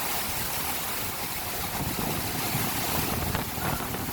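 Heavy rain pouring down: a steady, dense hiss with a low rumble beneath it.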